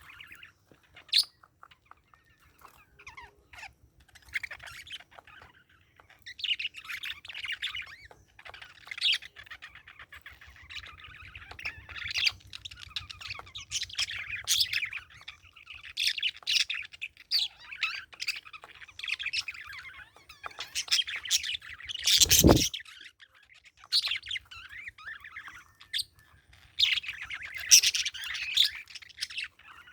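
Parakeet chirping in quick, irregular runs of short high notes, with a sharp knock about three quarters of the way through.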